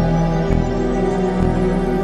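Background music with a steady beat of about two a second under sustained tones.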